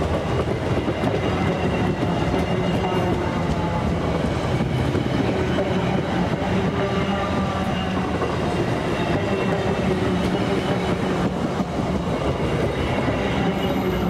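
VIA Rail passenger coaches rolling past at track level, a steady loud noise of wheels running on the rails.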